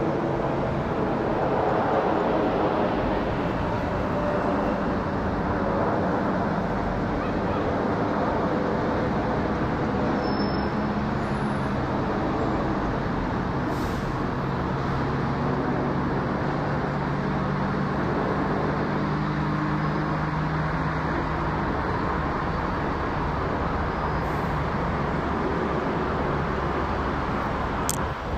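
Steady, even engine rumble of a Boeing 787-9 airliner passing overhead, mixed with road traffic; a lower engine hum runs through the middle stretch.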